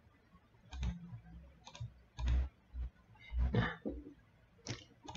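Computer mouse clicking: about six short, sharp clicks at irregular intervals, some with a dull thud beneath.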